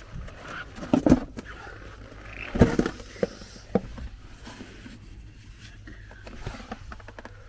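Hand rummaging behind a car's plastic interior trim panel: rustling and scraping, with two sharp knocks in the first three seconds and a smaller one a little later, then quieter fumbling.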